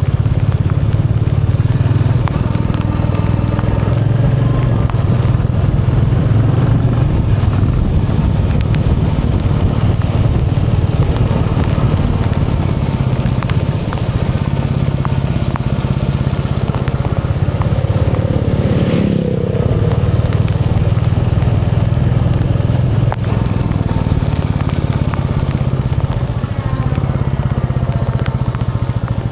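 Royal Enfield Bullet 350's single-cylinder engine running steadily while riding, its note rising and falling only slightly. About two-thirds of the way through, a brief sound drops quickly in pitch.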